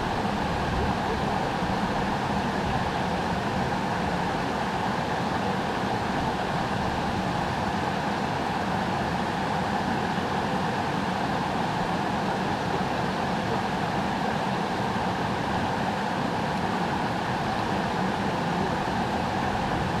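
Mountain stream running over bedrock slabs: a steady, even rush of water that does not change.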